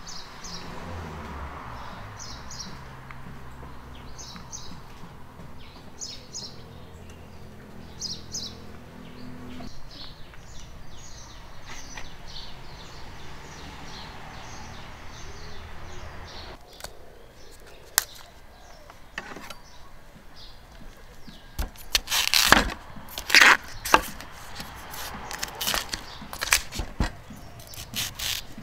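Birds chirping over a low steady hum, the hum stopping about a third of the way in. Then a cleaver cuts into a fresh bamboo shoot on a wooden chopping board: sharp chops and scrapes, the loudest a cluster of chops in the last third.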